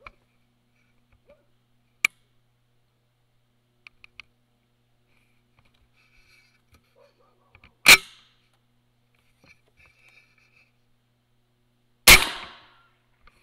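Two gunshots about four seconds apart, the second with a longer fading tail, after a single sharp click about two seconds in.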